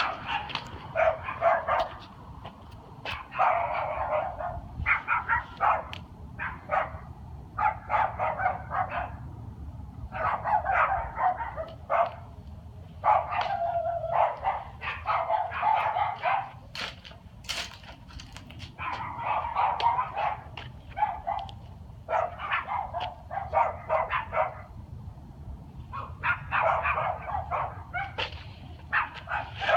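A dog barking repeatedly in bouts of several quick barks, with short pauses between bouts, over a steady low background hum.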